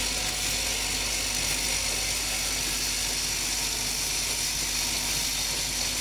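Automatic pencil sharpener assembly machine running: a steady mechanical whir with a high hiss and a low hum, from its vibratory bowl feeders and assembly stations.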